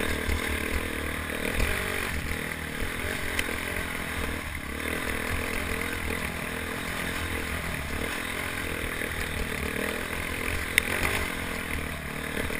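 Single-cylinder dual-sport motorcycle engine running steadily under load as the bike climbs a rocky trail, heard from a helmet-mounted camera. There is some clatter over the rocks and a sharp knock near the end.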